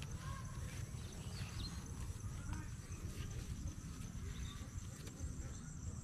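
Faint, steady insect chirring in a rice field over a low rumble of wind on the microphone.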